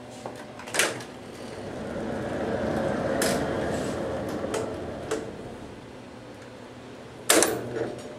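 An overhead X-ray tube being moved and set into position over the table: several sharp clicks, likely its locks and the collimator light switch, around a rolling noise that swells and fades over a few seconds.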